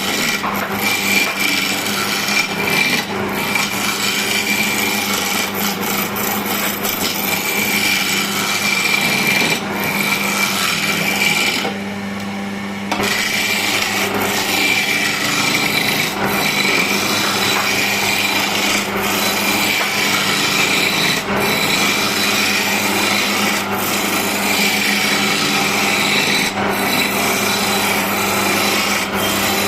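Wood lathe running with a hand-held turning tool cutting into the spinning wooden blank for a stair baluster: a steady scraping, rasping cut over the motor's hum. The cutting noise drops away briefly about twelve seconds in, then resumes.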